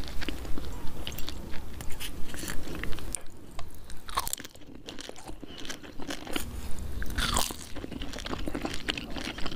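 Close-miked crunching and chewing of pani puri, the crisp hollow shells cracking between the teeth in quick irregular clicks. It goes quieter for a few seconds midway, then the crunching starts again.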